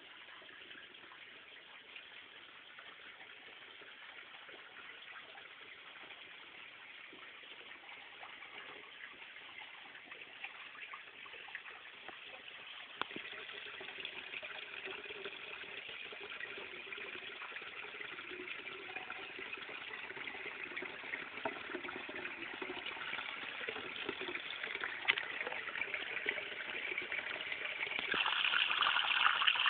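Rushing, gushing water, growing steadily louder, with a sharp step up in loudness near the end.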